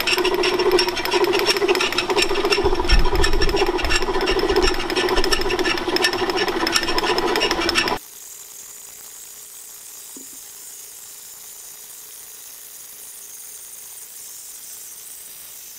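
Motor, gearbox and ratchet-strap belt drive of an old Brown & Sharpe No. 2 horizontal milling machine running, a loud steady hum with rapid even ticking. About eight seconds in, the sound drops suddenly to a much quieter steady hum of the mill running with its cutter turning at the manifold face.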